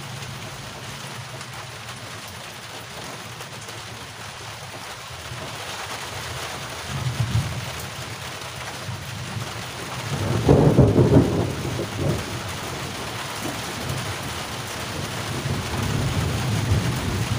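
Steady rain, with low rumbles of thunder, the loudest about ten and a half seconds in.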